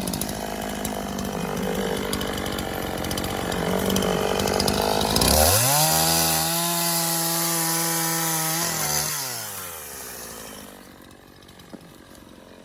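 Two-stroke Echo chainsaw running steadily, then revving up sharply about five seconds in and cutting through a log at full throttle for about three seconds before the throttle is released and the engine winds back down to idle.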